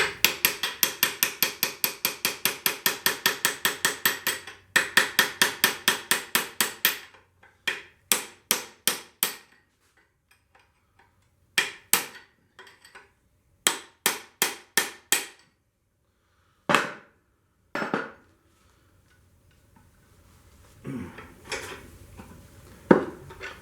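Hammer blows, metal on metal, beating a bearing inner race off a mower deck shaft. Two long runs of fast, even blows at about five a second open the sound, followed by shorter bursts of blows with pauses between them and a few single hits near the end.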